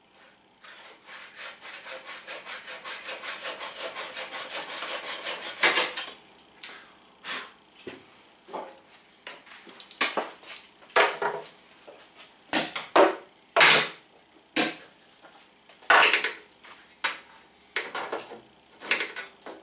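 Small hand saw cutting through the leftover tab of Filon fiberglass roof sheet with fast, even strokes, about eight a second, growing louder for about five seconds. Then come a series of separate, louder scrapes and knocks, the loudest sounds in the clip.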